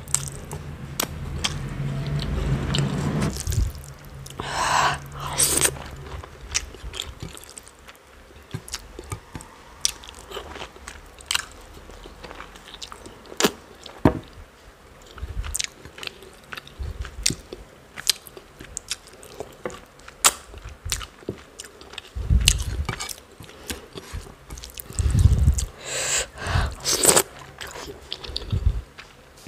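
Close-miked chewing and mouth sounds of someone eating rice and chicken curry by hand, with many small clicks. A few heavier low thuds come at the start and again about three-quarters of the way through.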